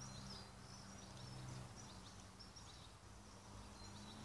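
Near silence: faint outdoor ambience with small birds chirping now and then in the distance and a low steady hum underneath.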